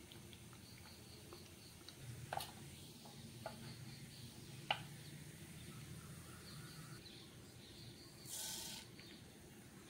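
Urad dal frying in shallow oil in a nonstick pan, a faint sizzle with a few sharp clicks. Near the end, a brief burst of hiss as mustard seeds are tipped into the hot oil.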